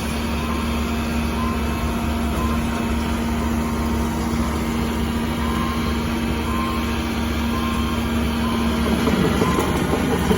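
Cat 310 excavator's diesel engine running with a steady hum and a held whining tone, with faint short beeps about once a second, like a backup alarm. Near the end the sound grows louder and rougher.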